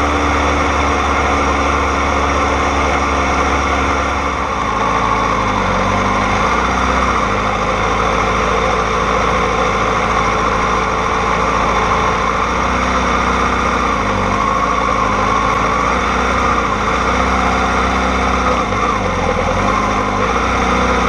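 Kawasaki ZX-6R's inline-four engine running at low revs as the bike rolls slowly, steady with small rises and dips in pitch.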